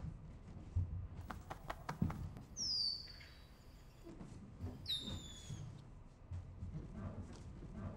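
Bare feet squeaking and thudding on a wooden stage floor: two short high squeaks that slide down in pitch, about 2.5 seconds apart, among soft footfalls and light knocks.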